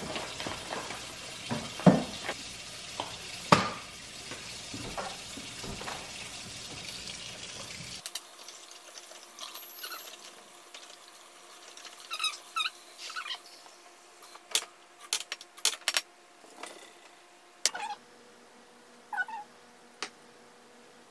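Cake ingredients being poured and stirred in bowls: a rustling, scraping stretch with a few knocks, then after a sudden change a quieter stretch of sharp clicks of a whisk against a small bowl, with a few short squeaks.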